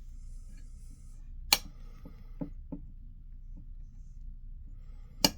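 Sharp clicks and taps of needle-nose pliers on the metal parts of an Emtek door handle mechanism as its return spring is wound into place: a loud click about a second and a half in, a few lighter taps soon after, and another loud click near the end.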